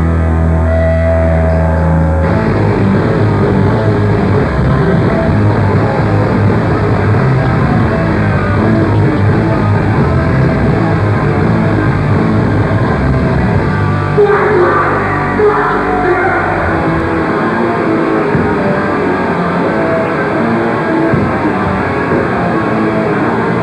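Hardcore punk band playing live, heard through a camcorder's microphone: loud distorted electric guitar over drums. About two seconds in, a held low note gives way to the full band.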